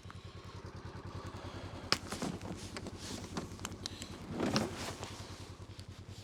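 A vehicle engine idling with an even low pulse, with a few sharp knocks and a short burst of clatter over it.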